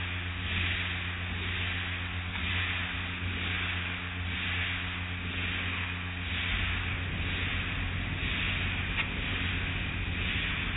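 Automatic car wash machinery running: a steady motor and pump hum under the hiss of water and foam spraying onto a car, the hiss swelling and fading about once a second. A deeper rumble joins a little past the middle.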